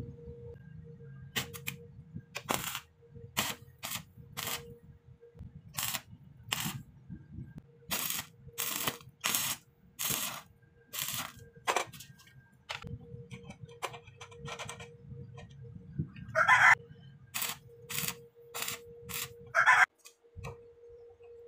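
Stick (arc) welding a steel flat bar: a string of short crackling arc bursts as tacks are struck, irregularly spaced over a steady hum. The two loudest bursts come about three seconds apart near the end.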